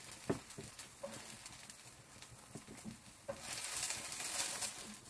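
A wooden spatula knocking and scraping lightly as it lays zucchini fritters onto a serving tray, a few soft knocks in the first three seconds. About three seconds in comes a louder rustle for about a second and a half.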